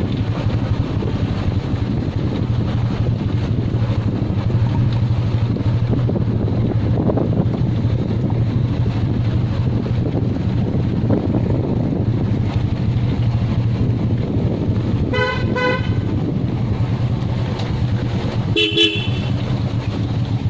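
Motorcycle engine running steadily. A vehicle horn honks twice near the end: a honk of under a second, then a shorter one about three seconds later.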